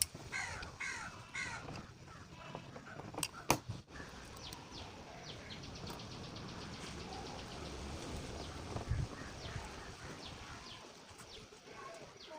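Three harsh bird calls in quick succession at the start, then a couple of sharp knocks about three and a half seconds in, over a steady background noise.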